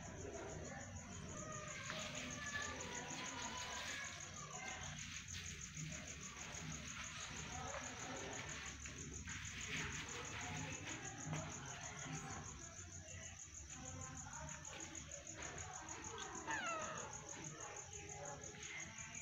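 Crickets chirping in a steady, continuous high trill.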